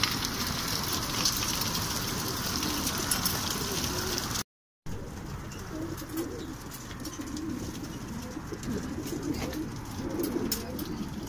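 Many racing pigeons cooing together in their transport crates over a steady hiss. The sound cuts out briefly about four and a half seconds in.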